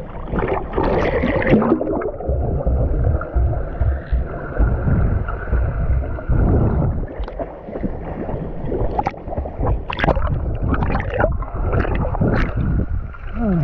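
Sea water sloshing and gurgling around a microphone dipped just under the surface: a muffled, steady underwater rumble broken by sharp splashy crackles.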